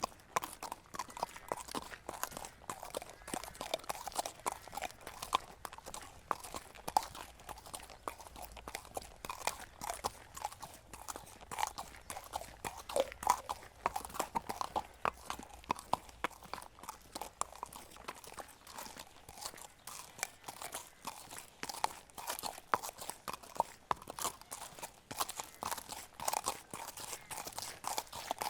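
Horse trotting: a continuous run of hoofbeats with a crunchy edge.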